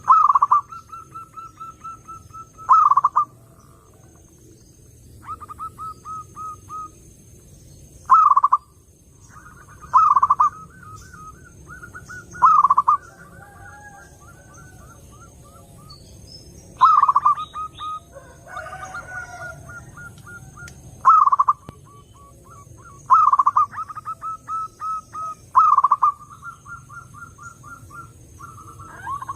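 Zebra doves (perkutut) cooing: phrase after phrase, each a loud coo that falls in pitch, followed by a quick rippling run of softer notes.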